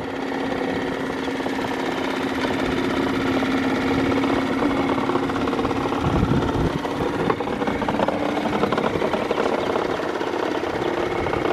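Small dinghy outboard motor running at idle, a steady even hum.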